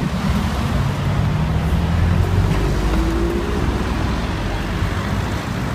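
Street traffic noise: a low rumble of road noise, with a motor vehicle's engine passing close by from about a second in for a few seconds.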